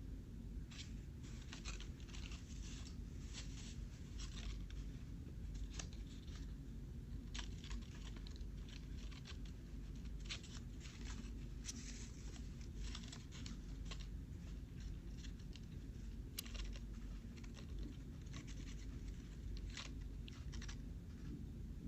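Sheet of paper being folded and creased by hand into an origami boat: irregular crinkles and rustles, over a steady low hum.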